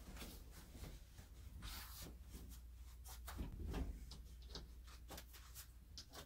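Faint rustling and soft clicks of a heavy fabric blanket being handled and hung on wall hooks, with a soft low thump about three and a half seconds in.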